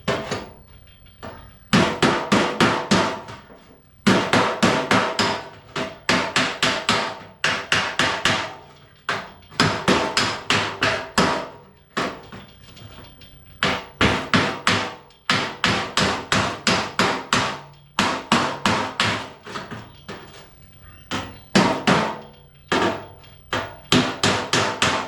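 A hammer tapping on the steel fender of a Ford XK Falcon, dressing the cut edge of the opening in the panel. The blows come in quick runs of several a second, each with a short metallic ring, with brief pauses between runs.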